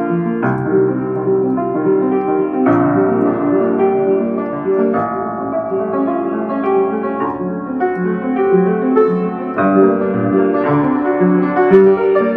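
Solo piano playing a flowing melody over repeating broken chords, with new chords struck at several points along the way.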